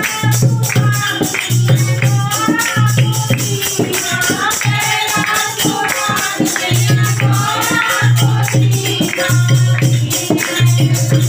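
A group of women singing a Hindu devotional bhajan into a microphone, with a dholak and hand percussion keeping a steady beat.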